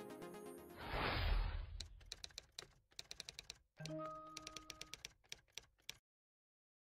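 Background music ends in a loud whoosh with a low thud about a second in. Then comes a run of quick, irregular keyboard-typing clicks, with a short held electronic tone at about four seconds. The sound cuts off to silence about six seconds in.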